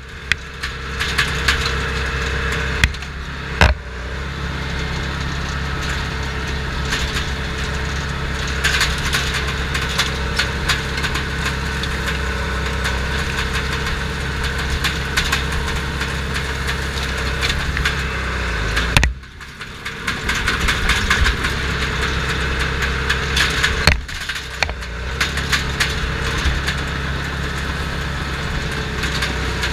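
Crawler bulldozer's diesel engine running steadily, heard from inside the cab, with frequent cracks and clanks throughout. The engine drops away briefly about 19 seconds in, then comes back up.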